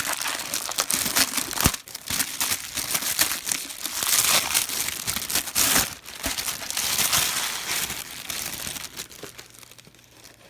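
Plastic packaging crinkling and rustling as it is handled and pulled off new PC satellite speakers, a dense crackly rustle with short pauses that fades out near the end.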